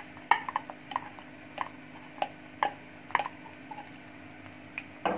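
Light clinks at irregular intervals, about ten in all, as chopped onion is knocked out of a bowl held over a nonstick frying pan. A faint steady hum lies underneath.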